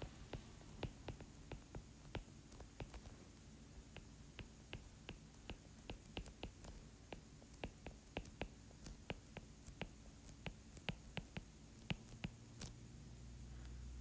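Stylus tip tapping and ticking on a tablet's glass screen while handwriting, a faint run of irregular clicks several times a second.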